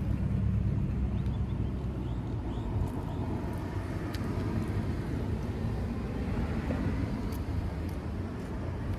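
Road traffic: a steady low rumble, with a vehicle going past that swells and fades through the middle.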